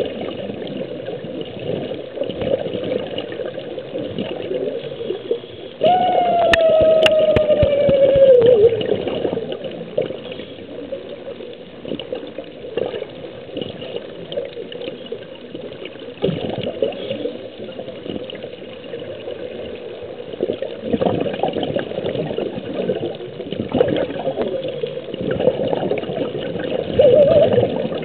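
Underwater scuba ambience: regulator breathing and exhaled bubbles gurgling, swelling with each breath. About six seconds in, a loud tone slides slowly downward for about two and a half seconds.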